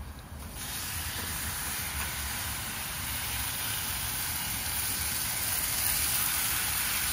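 Lamb chops sizzling in a hot frying pan. A steady sizzle starts about half a second in as the first chop goes into the pan.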